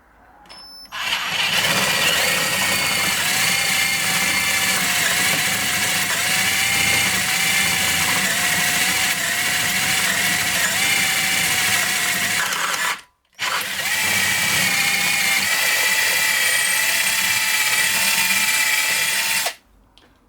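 Electric drill running under load, boring a hole out with a 4.5 mm bit; its motor whine wavers slightly as it cuts. It runs for about twelve seconds, stops briefly, then runs again for about six more.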